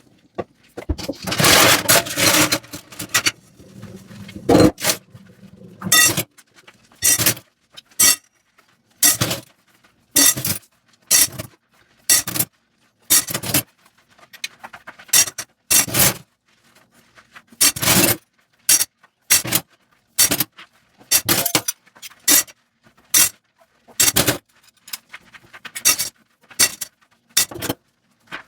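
Dishes being scrubbed at a sink: a brief rush of water at the start, then a long run of short scraping strokes, about one a second.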